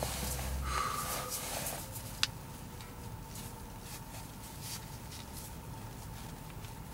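Faint rustling and small clicks of a gloved hand handling the plastic trim of a car's overhead console, with one sharper click about two seconds in.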